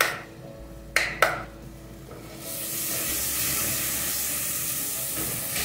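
Two sharp knocks about a second in, then garlic starts sizzling in hot oil in a saucepan. The sizzle is a steady hiss from about halfway on, and the garlic is stirred with a plastic spatula.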